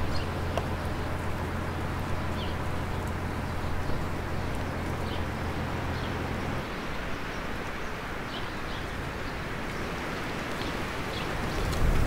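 Short, scattered bird chirps over a steady outdoor hiss, with the low steady hum of the motorhome's idling engine underneath that stops about six and a half seconds in.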